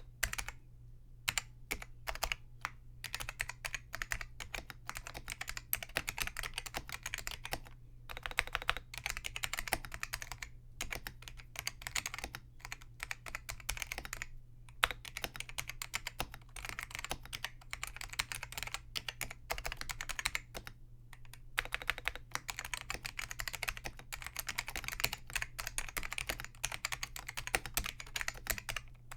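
Typing on a Focus FK-2001 keyboard with Hua-Jie T1 Alps-clone switches, click leaves removed so they are nearly linear but keep a strong tactile bump. Quick runs of keystrokes broken by short pauses, over a steady low hum.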